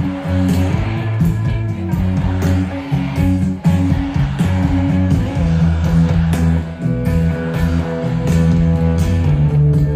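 Live band music over a large concert PA: electric guitar over heavy bass and drums keeping a steady beat.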